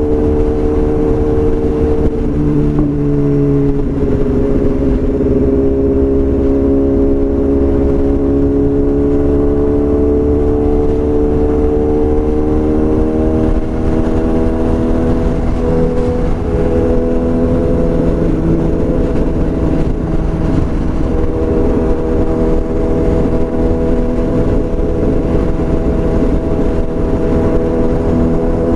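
BMW S1000RR inline-four engine with a full Akrapovič exhaust, running steadily with its pitch drifting slowly lower and higher over a steady low rumble.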